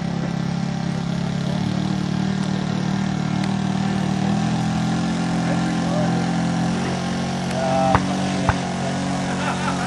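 Engine and propeller of a giant-scale RC Cessna model plane running at a steady pitch, with two sharp knocks near the end.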